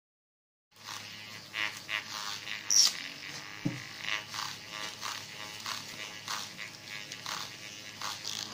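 Small electric motors of a homemade paper-airplane launcher spinning its two toy-car wheels, a steady buzz starting about a second in, with scattered clicks and knocks.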